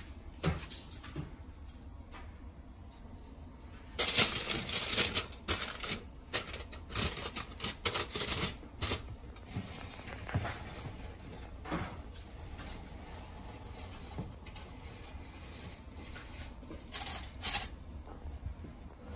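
Aluminium foil crinkling and crackling in irregular bursts, with light knocks, as fish are handled on a foil-lined oven tray; the crackling is densest in the first half and thins to a few knocks later.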